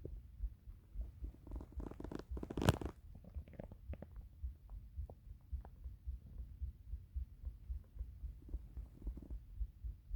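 A hungry stomach rumbling and gurgling, with a louder gurgle that peaks sharply about two and a half seconds in and softer gurgles later, over a steady low throbbing.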